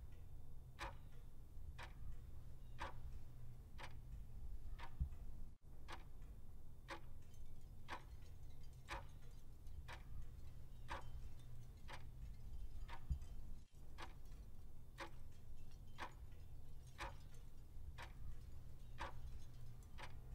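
Mechanical clock ticking steadily, about one tick a second, over a faint low rumble.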